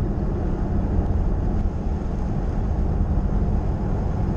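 Turbocharged 1988 Chevrolet Caprice cruising, heard from inside the cabin: a steady low engine and road rumble.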